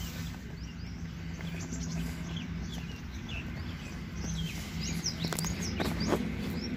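Small birds chirping, with many short high calls scattered through, over steady outdoor background noise with a low hum.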